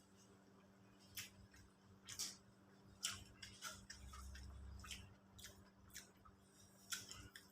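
Quiet eating sounds: scattered soft clicks and wet smacks of mouth and food, about eight in all, over a faint steady hum.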